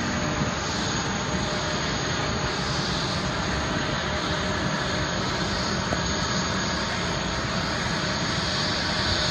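Steady jet-engine noise from airliners on an airport apron, with a high whine that grows stronger near the end.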